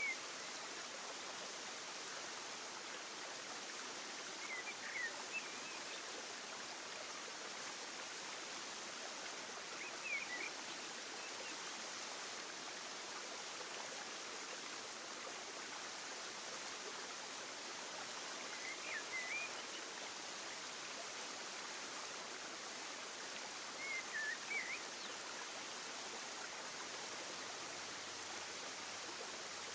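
Steady outdoor ambience of flowing water, a continuous even rush, with short high bird chirps about every five seconds.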